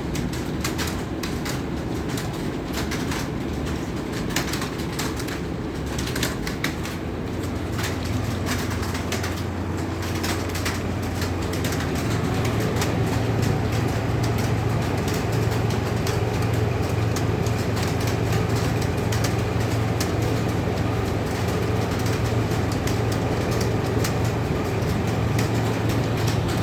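Continuous fast typing on an Acer computer keyboard, a dense irregular clatter of keystrokes. A steady low hum sits underneath and grows louder about a third of the way in.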